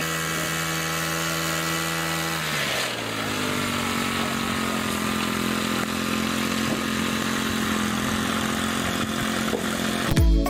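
A machine's motor running steadily; its pitch drops about two and a half seconds in, then holds. Music with a beat starts just before the end.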